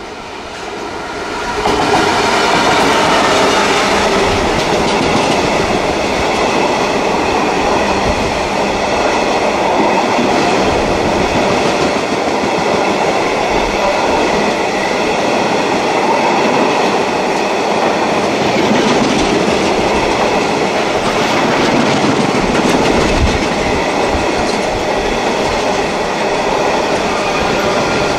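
A Class 66 diesel freight locomotive passes close by, getting sharply louder as it draws level about two seconds in, followed by a long train of container wagons rolling steadily past.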